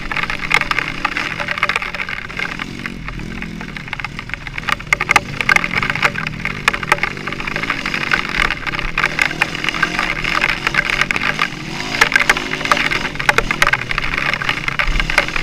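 Dense, irregular crackling and clicking, like rain or grit hitting the camera microphone, over a lower engine-like drone that rises and falls in pitch.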